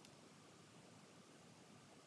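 Near silence: a faint steady hiss of room tone, with one brief click just at the start.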